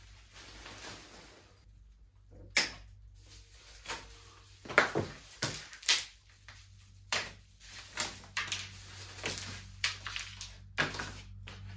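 Plastic packaging pulled off and crumpled by hand: an irregular run of sharp crinkles and rustles.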